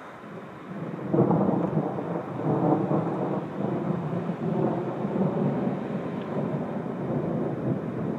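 A long peal of thunder: it breaks in suddenly about a second in, is loudest for the next couple of seconds, then keeps rolling and rumbling at a lower level.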